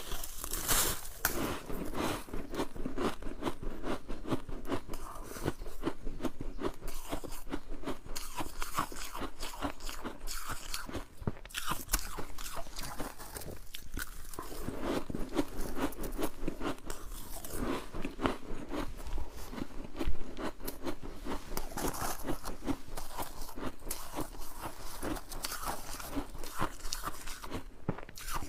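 Freezer frost being bitten and chewed: a continuous run of close, crisp crunching, with one louder crunch about two-thirds of the way through.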